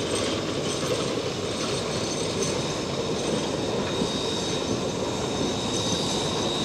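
A train passing at close range: the steady rumble and clatter of the Heisler geared steam locomotive's running gear and wheels, followed by the cars behind it.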